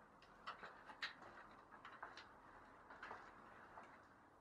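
Near silence broken by faint, irregular footsteps and scuffs on a gritty, debris-strewn floor.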